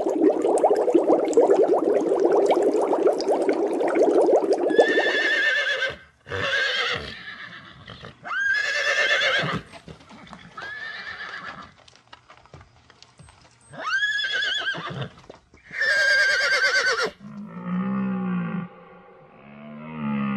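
A dense crackling noise for about the first five seconds, then horses whinnying: about six neighs one after another, each a high, quavering call about a second long. Near the end come low, repeated bellowing calls of a red deer stag.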